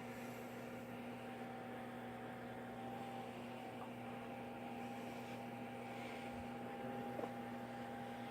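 Steady electrical hum over faint room noise, with a couple of faint ticks, about 4 and 7 seconds in.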